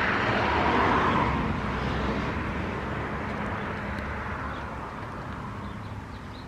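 A vehicle going by on a wet road: tyre hiss swelling about a second in and then slowly fading away.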